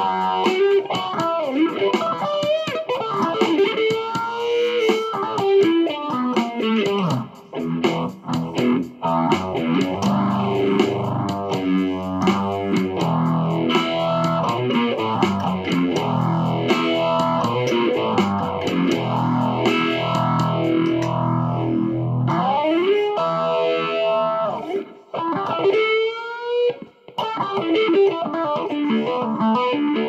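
A Telecaster-style electric guitar played solo, overdriven: single-note lines with string bends mixed with strummed chords, with a couple of short pauses.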